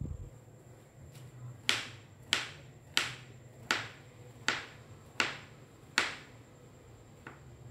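Kitchen knife slicing through a block of tempe and tapping down on a plastic cutting board: seven sharp taps, about one every three-quarters of a second, then a fainter one near the end.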